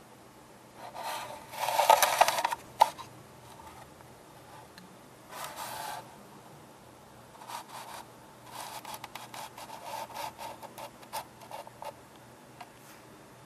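Handling noise: rubbing and scraping, with a loud rustling scrape about two seconds in that ends in a sharp click, a shorter scrape around the middle, then a run of quick scratches.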